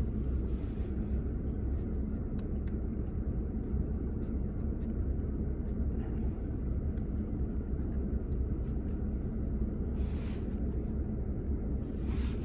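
Steady low rumble of a 2021 Ford F-150 idling, heard inside the cab, with a few faint clicks.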